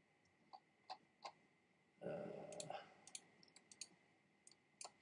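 Computer mouse clicking in sharp single clicks, a few spaced ones at first and a quicker run toward the end, as stray pixels are erased one at a time. A brief low vocal hum about two seconds in.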